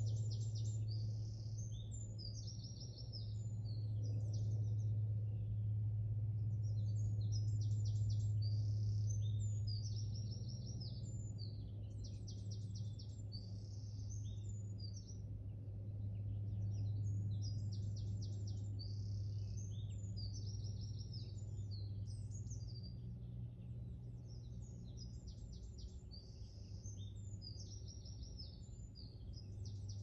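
Songbirds singing: bursts of rapid, high, trilled phrases a few seconds long, repeated every few seconds, over a steady low hum that swells and fades.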